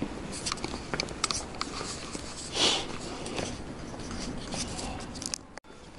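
Handling noise from a handheld camera: scattered small clicks and knocks, with one short breathy hiss about two and a half seconds in.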